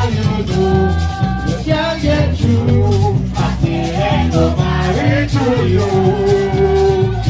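Live string-band music: acoustic guitar and bass guitar with a shaker keeping an even rhythm, and voices singing, one note held for about two seconds near the end.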